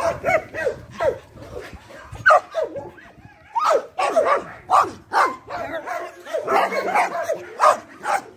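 Several dogs barking and yipping while play-fighting: short sharp calls in quick succession, with a brief lull about three seconds in.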